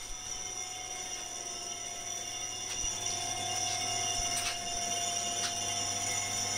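Metalworking machine tool running steadily: a low motor hum with a steady mid-pitched tone and a high whine. Light ticks come about once a second from about halfway in, and it grows slightly louder.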